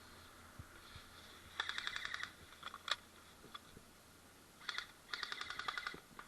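Airsoft gun firing two rapid bursts of snapping shots, each under a second long, with a few single shots between.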